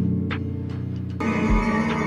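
Background music with sustained low held tones, growing fuller as more notes come in just after a second in, with a low thud near the end.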